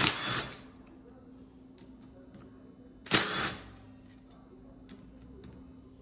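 Cordless power tool, most likely an impact driver, running in two short bursts about three seconds apart as the disc brake rotor bolts are backed out of a bicycle wheel hub. Faint clicks fall between the bursts, over a faint steady hum.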